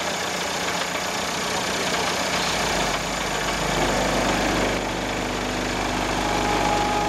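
A steady low hum from the tuned VW Golf Mk4 starts abruptly about two and a half seconds in, over constant background noise. Several steady higher tones join in near the end.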